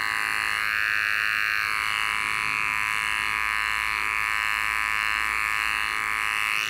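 Artero Premium professional corded clipper with a 7F blade running steadily, a constant buzz as the blade clips under matted hair behind a poodle's ear.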